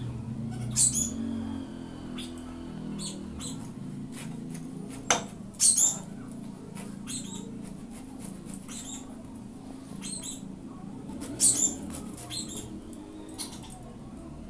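Knife cutting and scraping through a raw jackfruit's rind and flesh: a run of short, sharp cuts at an uneven pace, the loudest a little under a second in, near the middle and near the end. A thin high squeak sounds for about a second early on.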